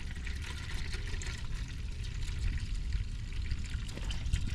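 Old engine oil pouring steadily out of the open drain plug hole of a BMW F10 550i's N63 oil pan and splashing into a drain pan.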